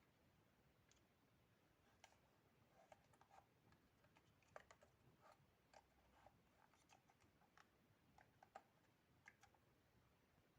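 Faint, irregular clicks and light taps, a couple of dozen scattered from about two seconds in until near the end.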